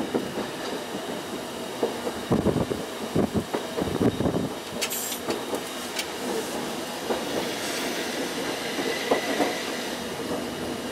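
Fukui Railway 770-series tram running on street track, heard from the cab: a steady rumble, with a run of wheel knocks over the rail joints about two to four and a half seconds in and a short high hiss about five seconds in.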